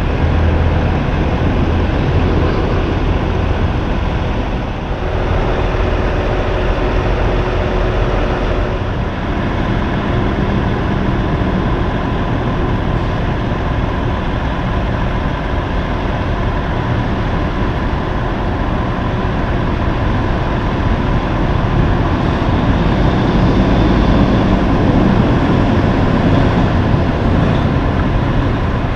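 Heavy diesel semi-trucks running and road traffic passing, a steady deep rumble that grows louder over the last several seconds as a tractor-trailer approaches.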